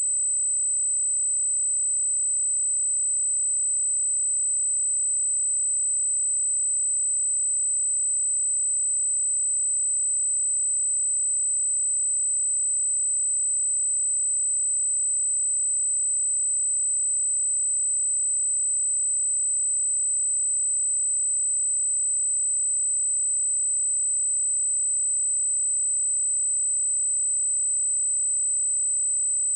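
A pure 8065 Hz sine-wave test tone, a single steady high-pitched whistle held at constant level without change.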